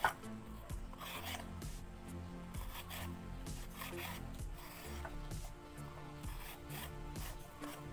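Ridged luffa gourd being peeled by hand, its ridged skin scraped and stripped off in short, irregular scrapes, with one sharp knock right at the start.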